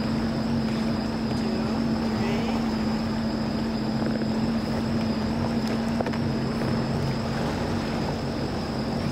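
Motorboat engine running steadily at low speed, a continuous even hum with a faint rush of water and wind.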